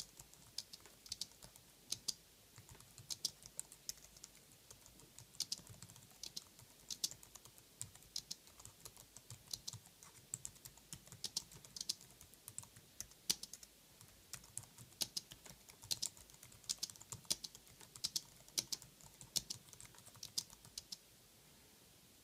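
Typing on an Apple Wired Keyboard, its low-profile scissor-switch keys giving quiet, irregular clicks at a steady typing pace. The typing stops near the end.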